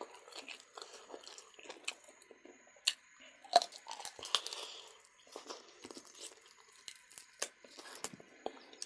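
Close-miked eating sounds: a person chewing and tearing at duck meat, with crunches and several sharp clicks from the mouth.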